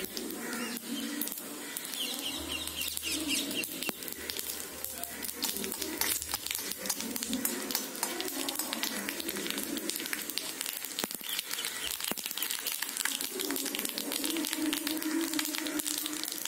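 Mustard seeds, cumin seeds and curry leaves sizzling in hot oil in an aluminium kadai for a tempering, with a steady hiss and a rapid stream of small crackles and pops as the mustard seeds splutter.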